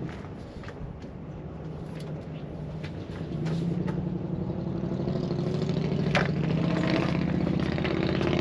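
An engine running steadily, getting louder about three seconds in, with a few sharp clicks and knocks over it.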